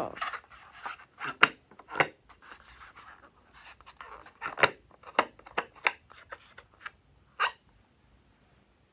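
Fingers handling and squeezing an inflated long latex balloon: a scattered run of short rubbery squeaks and rubs, the last about seven and a half seconds in.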